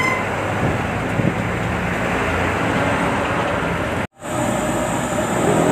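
Steady vehicle and road-traffic noise, broken by a sudden brief dropout about four seconds in.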